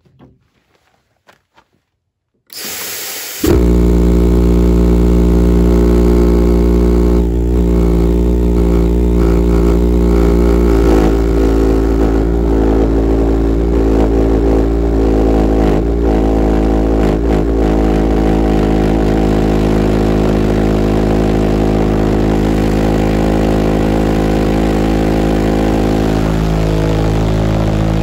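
Super Dragon 450-pound-thrust pulsejet engine starting. A few faint clicks come first, then about two and a half seconds in a loud rushing burst, and within a second the engine lights. From then on it runs with a steady, very loud drone of fixed pitch.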